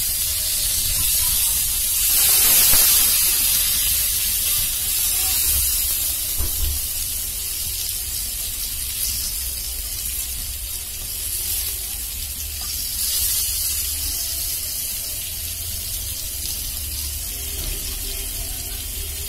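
Pointed gourds (potol) frying in hot oil in a pan: a steady sizzle that swells briefly about two seconds in. A metal spatula scrapes and knocks against the pan a few times as the pieces are turned.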